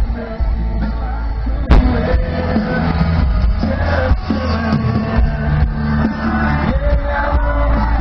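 Live country song from a concert PA: a male singer with a band over heavy bass, with crowd voices yelling along, heard from within the audience. A sharp knock about two seconds in.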